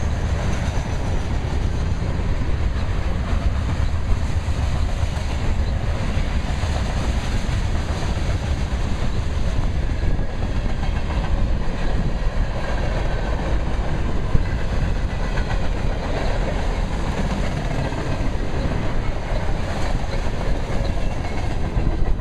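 Train rolling past, its cars' wheels clicking over the rail joints in a steady, continuous rumble.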